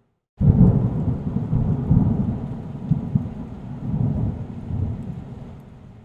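Thunder: a sudden rumbling peal about half a second in, rolling in waves and slowly fading away.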